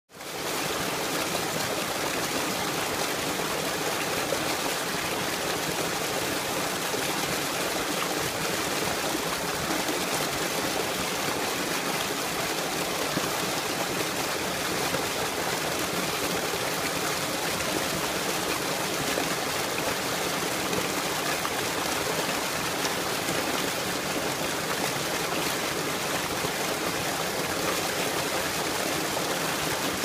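Water gushing from a pipe into a concrete hatchery pond, splashing steadily with an even rush of water.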